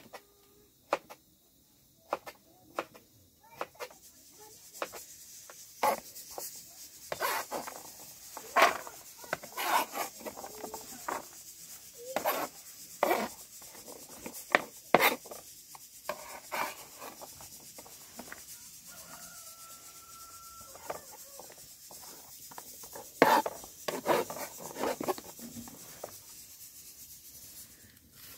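Kitchen knife chopping peeled squash on a plastic cutting board: a run of sharp knocks, about two a second at first, louder and more irregular from about six seconds in, with the blade scraping against the board and the pieces.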